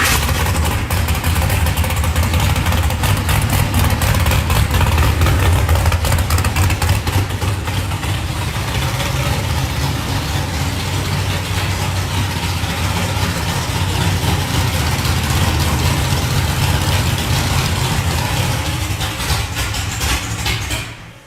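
Old Mercury Bobcat car engine running steadily just after starting, then cutting out suddenly near the end. The engine dies unless the throttle is held open, with the fuel pump not heard.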